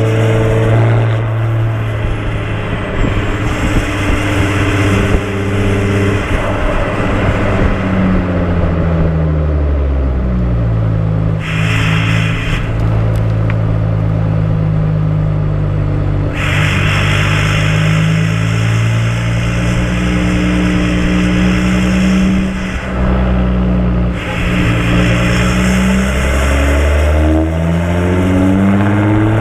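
Audi A5 3.0 TDI V6 diesel engine running through open, straight exhaust pipes. The note holds steady, drops in pitch about a third of the way in, holds lower for a long stretch, drops again later, then starts rising near the end.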